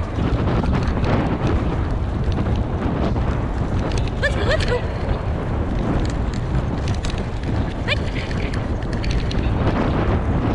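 Wind buffeting the microphone of a bike-mounted camera as the bicycle rolls fast along a dirt trail, a loud steady rushing. A few brief high squeaks come about four seconds in and again near eight.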